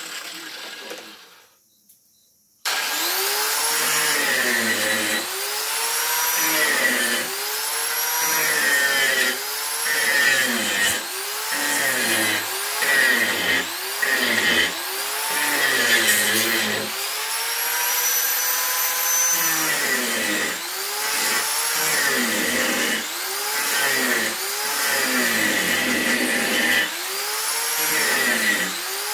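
Handheld electric power sander with a round sanding disc, working a rough wooden plank. It winds down and stops at the start, switches back on about three seconds in, and runs on with its pitch dipping and recovering again and again as it is pressed into the wood.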